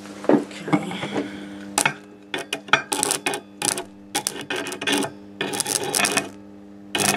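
Rewound microwave-oven transformer humming steadily under a dead short of its heavy secondary, with loud irregular crackling and snapping from about two seconds in as a steel tool arcs against a steel bar and throws sparks.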